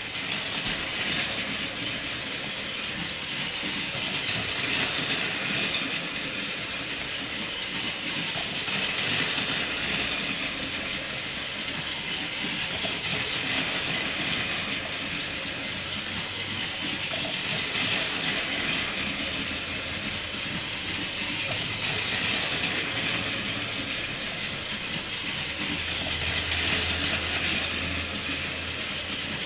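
Battery-powered Plarail toy trains (100 series Shinkansen) running on plastic track: a steady whir of the small geared motors with wheel clatter, swelling every four and a half seconds or so as a train comes close by.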